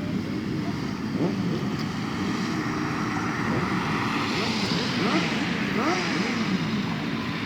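Several off-road motorcycle engines revving at once, their pitch repeatedly rising and falling as the riders open and close the throttle.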